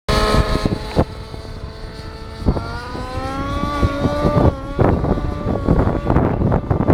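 Radio-controlled model aircraft motor and propeller whining at a steady pitch, rising in pitch about a third of the way in, with strong wind buffeting the microphone.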